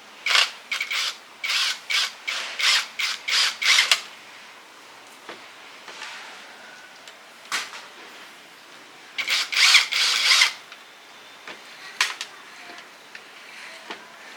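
Abrasive rubbing strokes by hand, as in filing or scrubbing a part: a quick run of short strokes about three a second, a pause with a single stroke, then a louder cluster of strokes and one more near the end.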